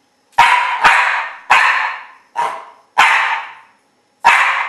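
A Coton de Tuléar barking six times in short, sharp single barks at an uneven pace, counting out the letter shown to her on a card, which looks like an F, the sixth letter.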